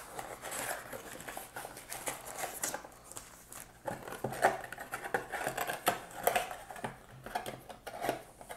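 A cardboard trading-card blaster box being opened by hand and its card packs slid out and stacked on a table: irregular rustling, scraping and light taps of cardboard and pack wrappers.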